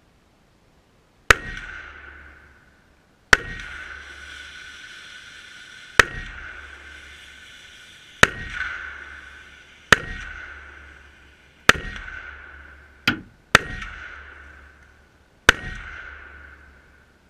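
SKS rifle in 7.62x39 fired slowly, nine shots about two seconds apart, one of them fainter. Each shot is followed by a ringing tone that fades over a second or two, like a struck steel target.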